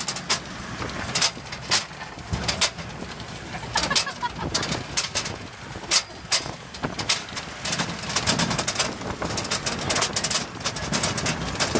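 Open-topped Land Rover Defender bouncing over a rocky dirt track: the body and roll-bar frame rattle and knock in quick, irregular clicks over a low rumble of engine and tyres.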